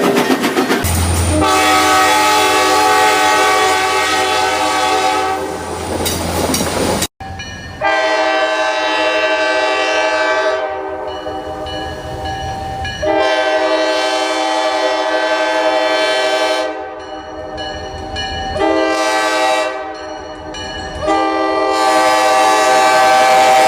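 Diesel locomotive air horn sounding a chord: one long blast, then after an abrupt cut a series of long and shorter blasts, the last one held on.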